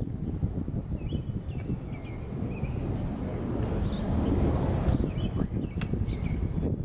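A steady high, fast-pulsing chirr, typical of crickets, over a low rumble that swells slightly about four seconds in as a Metra EMD F40PH-3 diesel passenger locomotive approaches.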